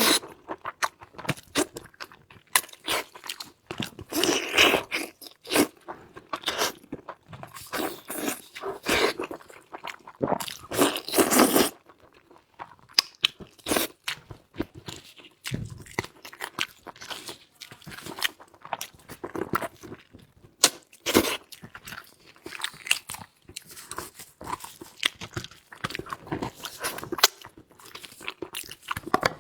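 A person chewing and biting food close to the microphone, with many short, irregular clicks and crunches in quick succession.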